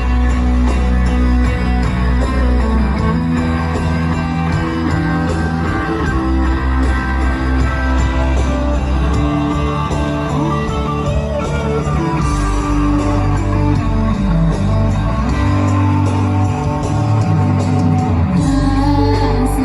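Music: an instrumental passage led by guitar over a steady bass line, with some singing.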